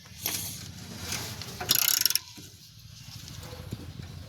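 Hand ratchet backing out a rusted exhaust bolt that has just broken free, its pawl clicking rapidly, with a couple of louder strokes.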